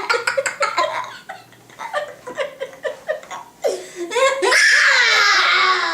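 A young boy laughing in a quick run of giggles that trails off, then a long, loud drawn-out 'baaaa' voiced as a mock burp, sliding down in pitch.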